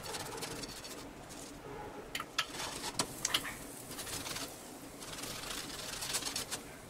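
Oil sizzling on a hot tava as it is brushed over a cooked paratha with a silicone brush, with a cluster of short crackling pops partway through.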